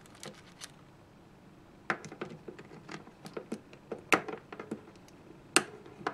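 Irregular sharp plastic clicks and taps as fingers work at a small action camera's battery cover, trying to open it. They start about two seconds in, with two louder clicks in the second half.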